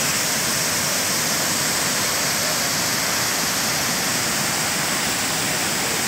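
Several waterfalls pouring over a rock ledge into a pool: a steady, even rush of falling water.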